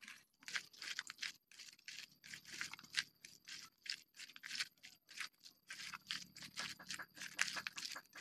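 A hand mixing and squeezing raw mutton with sliced onions, garlic and spice paste in a stainless-steel bowl. Quick, irregular wet squelches and crunches, with the food scraping against the bowl several times a second.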